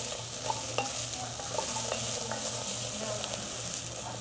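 Diced vegetables sizzling in butter in an enamelled cast-iron pot as a wooden spoon stirs them: a steady hiss with a few light clicks of the spoon against the pot.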